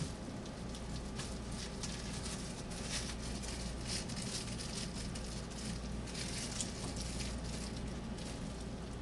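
Faint irregular crackling and pattering as a gelatin-set pork terrine is worked loose from its container, over a low steady hum.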